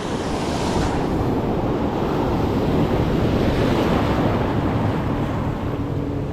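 Ocean surf breaking and washing up the beach, a steady rushing that swells and eases, with wind buffeting the microphone. A faint low steady hum sets in near the end.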